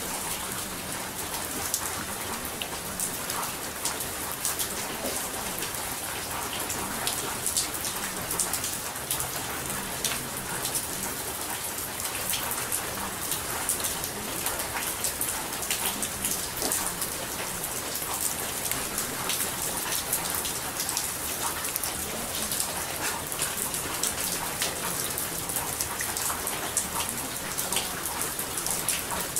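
Steady rain falling on a surface, a dense, even patter of drops with no change throughout.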